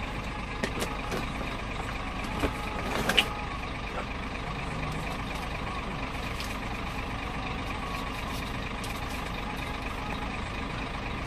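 Scania 124L truck's 420 hp straight-six diesel running steadily as heard from inside the cab, with a few sharp clicks and knocks in the first few seconds.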